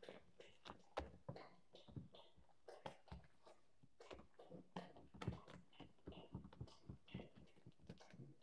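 Spatula folding thick cheesecake batter in a stainless steel mixing bowl: faint, irregular soft taps and scrapes against the bowl, a few each second.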